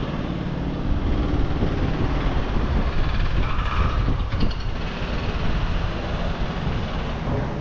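City street noise: a steady low rumble of passing traffic.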